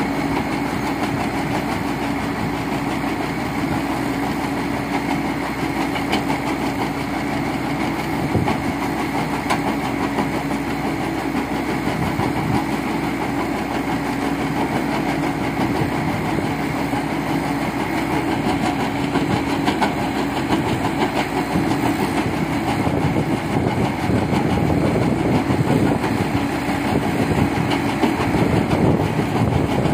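Caterpillar backhoe loader's diesel engine running steadily under load, driving a crusher bucket on the front loader arm that is breaking stone into gravel, with a constant stream of small crunching knocks from the stone.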